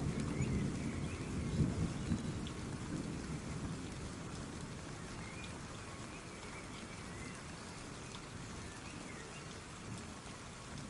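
Steady rain falling, with a low rumble of thunder that dies away over the first few seconds.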